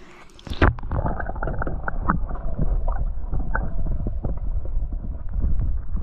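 Muffled rumbling noise on the microphone with many small knocks through it, starting with a thump about half a second in.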